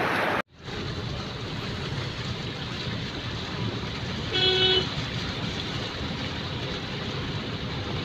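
Steady street and traffic noise on a flooded road, with one short vehicle horn toot about four and a half seconds in, lasting about half a second. A brief rush of floodwater cuts off abruptly about half a second in.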